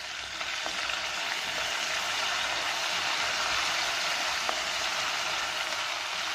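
Fresh curry leaves, peanuts and roasted gram frying in oil in a kadai on low flame: a steady sizzle that grows a little louder over the first two seconds. A wooden spatula stirring them gives a few light clicks.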